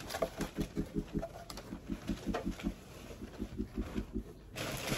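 Crumpled packing paper rustling and crackling as armor pieces are handled in a cardboard box, louder near the end. Under it runs a steady low pulsing sound, about seven beats a second.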